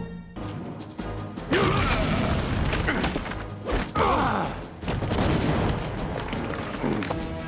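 Animated action-scene soundtrack: dramatic music with three sudden crashes or booms, about a second and a half in, at four seconds and near the end. Each crash is followed by falling swoops.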